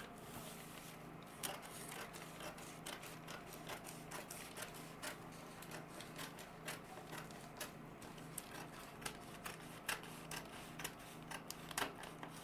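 Large dressmaking scissors cutting through brown pattern paper: a run of irregular snips and paper crackles as the blades close along a traced sleeve outline.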